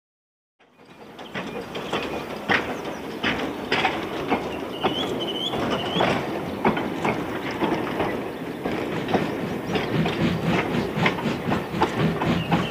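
Silence for under a second, then a freight train fades in, its wagon wheels clicking steadily over the rail joints. A short wavering high squeal comes about five seconds in, and a low steady hum joins near the end.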